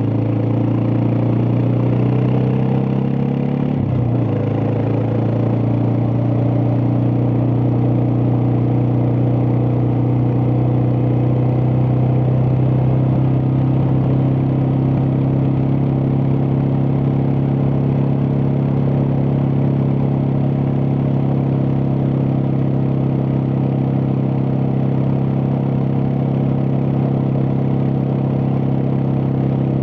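Suzuki DR650's single-cylinder four-stroke engine running steadily under way, with a brief dip in engine pitch about four seconds in before it settles into an even note.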